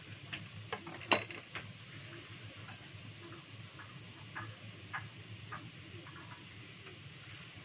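Scattered light clicks and clinks of kitchen utensils and containers against a small stainless-steel bowl, the loudest a short ringing clink about a second in, over a low steady hum.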